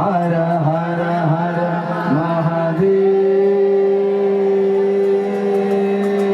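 A devotional aarti chant sung by a male voice; about three seconds in, the chanting gives way to a single steady held tone, unbroken to the end.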